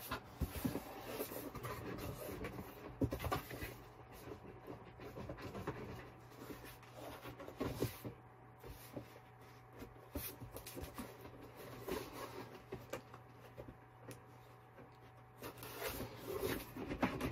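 Cardboard packaging being wrestled with by hand: irregular scraping, rubbing and light knocks as a boxed vinyl figure is forced out of a tight-fitting shipping box.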